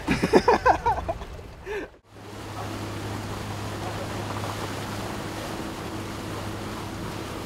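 A voice for about two seconds, then after a cut a boat's engine running with a steady low hum, over an even rush of water and wind.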